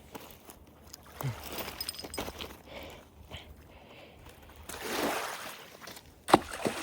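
Shallow water sloshing and splashing at the shore in two swells, with one sharp knock near the end.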